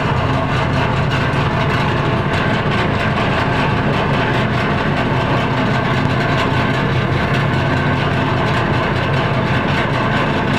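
Heavy diesel engine running steadily at a constant speed, a loud, unchanging drone.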